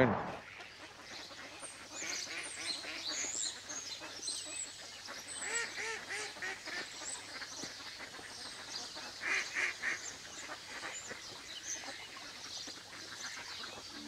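A flock of waterfowl calling: Canada geese honking and ducks quacking in repeated bouts, loudest about halfway through and again around ten seconds in, with small birds chirping high and thin throughout.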